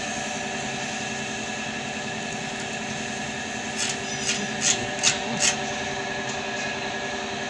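Steady hum of an idling arc-welding set. About four to five and a half seconds in come half a dozen sharp metallic taps on the fresh weld.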